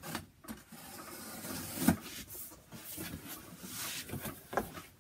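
Packing tape on a cardboard box being slit along its seam, a rasping scrape ending in a sharp snap about two seconds in, followed by the cardboard flaps being pulled open with rustling and light knocks.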